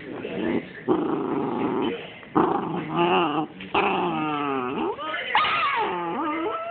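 Small dogs play-fighting: rasping growls at first, then drawn-out whining yips whose pitch slides up and down, ending in a high squeal.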